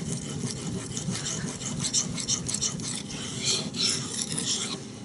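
Bark River Bushcrafter knife blade stroked back and forth on a sharpening stone: a continuous scratchy rasp of steel on stone.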